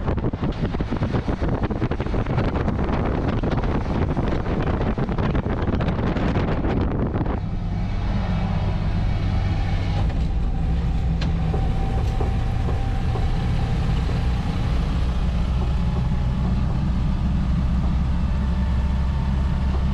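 A 1970 Land Rover on the move, heard from inside the cab: engine and road noise under heavy wind buffeting on the microphone. About seven seconds in, the wind noise drops away suddenly, leaving a steady low engine drone.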